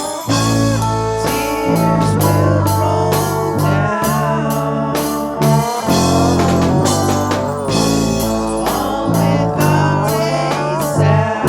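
Blues-rock band music: a guitar plays a lead line with bent, wavering notes over bass and drums.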